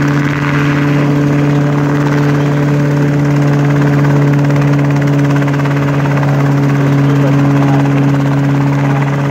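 Small light helicopter hovering low over the ground: a steady drone from its engine and rotor, holding one pitch, with a low hum and a second tone above it.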